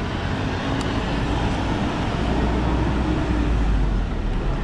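Steady outdoor street noise with a low rumble that grows louder about two seconds in.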